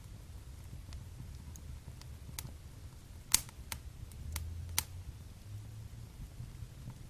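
Wood fire crackling in a fireplace: scattered sharp pops and snaps, five or so between about two and five seconds in, over a low steady rumble of the burning.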